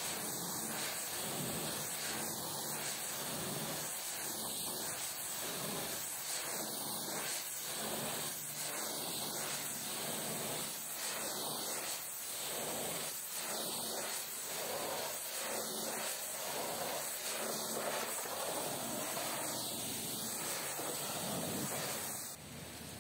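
Pressure-washer spray hissing steadily against the truck, then dropping and changing abruptly near the end.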